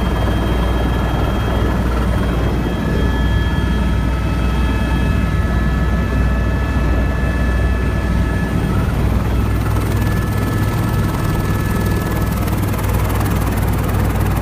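Helicopter in flight: a steady, loud low drone with a few thin, steady high whines running over it.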